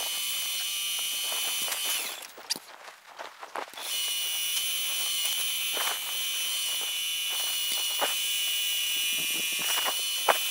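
Twist drill boring a deep hole in a metal block, giving a steady high-pitched squeal. The squeal stops for about two seconds near the start, with a few light clicks, then resumes.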